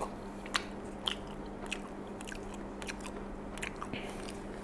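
A person chewing a mouthful of baked macaroni cheese close to the microphone, with small wet mouth clicks about once or twice a second.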